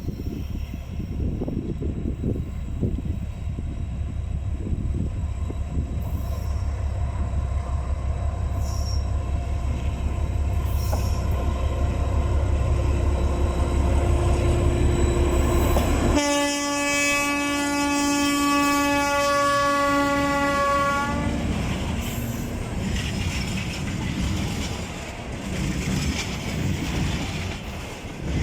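TEM2U diesel locomotive's engine running with a low drone that grows louder as the freight train approaches. About 16 seconds in, the locomotive sounds one long horn blast of about five seconds. The rumble and clatter of the freight wagons rolling past follows.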